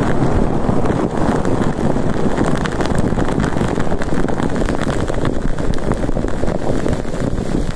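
A steady, dense rushing noise, strongest in the low range, with faint crackles scattered through it.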